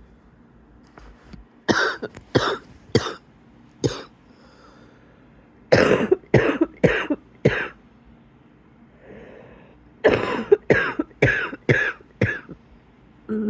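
A person's wheezy cough in three fits of four to six sharp coughs each, with short pauses between the fits.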